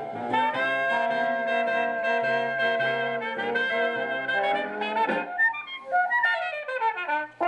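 Horn-led jazz music playing from a record on a 1958 Dynavox portable stereo record player. Long held chords give way about five seconds in to quicker runs of falling notes.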